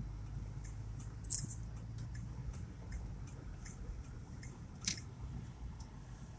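Low steady rumble of a car's engine and tyres heard from inside the cabin while driving slowly, with a couple of short sharp clicks, about a second and a half in and again about five seconds in.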